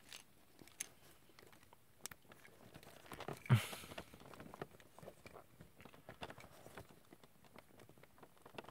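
Faint clicks and rubbing of small plastic parts as a backpack armour piece is pressed onto the back of a plastic action figure, with one short louder noise about three and a half seconds in.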